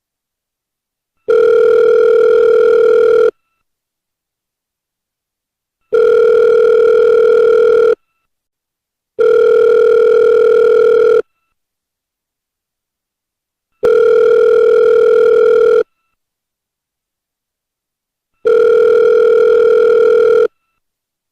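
Telephone ringback tone of an outgoing call: a steady buzzing tone rings five times, each ring about two seconds long, with silent gaps of uneven length between rings.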